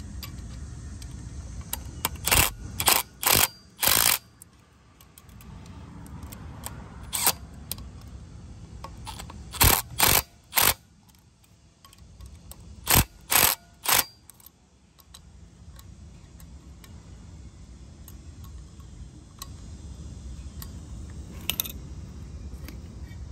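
Cordless impact driver fired in short bursts, in clusters of three or four with pauses between, plus one fainter burst near the end. It is running the bolts of a blower motor's mounting bracket down a little at a time so the bracket seats evenly without overtightening.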